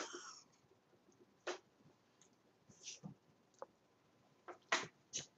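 A few short, separate clicks spread over several seconds, the two sharpest close together near the end, with the fading tail of a brief pitched sound at the very start.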